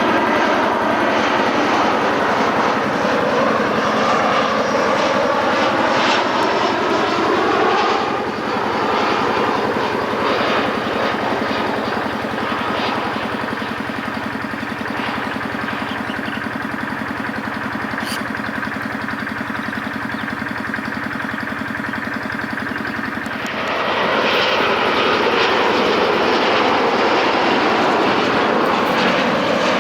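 Jet airliner engines running as the aircraft passes low on its landing approach, with sweeping, shifting tones in the first several seconds. The sound eases off somewhat in the middle and grows loud again about 24 seconds in.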